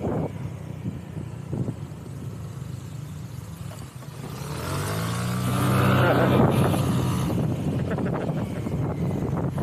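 A motor vehicle's engine swells in pitch and loudness about five seconds in, peaks about a second later, then eases off. Steady road and wind noise from riding runs underneath.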